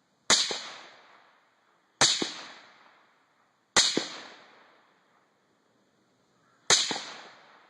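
Four suppressed .308 rifle shots from a Mega Arms MA-TEN with an OPS Inc. 12th Model suppressor, spaced a second and a half to three seconds apart. Each shot is a sharp crack that dies away over about a second, with a fainter crack about a fifth of a second after it.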